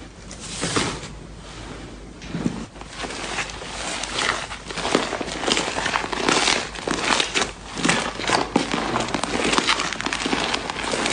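Hands squeezing and kneading slime, giving a dense, irregular run of wet clicks and pops that grows busier after the first couple of seconds.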